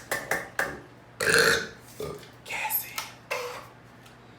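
A man burps once, a loud half-second belch about a second in, after a few short clicks.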